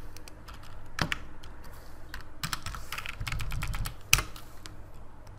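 Computer keyboard being typed on: irregular key clicks, with one sharper, louder click about four seconds in.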